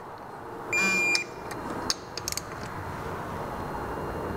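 Digital torque wrench beeping once, for about half a second, as a cam tunnel screw on the engine's cylinder head reaches its set torque. A few light clicks from the wrench follow.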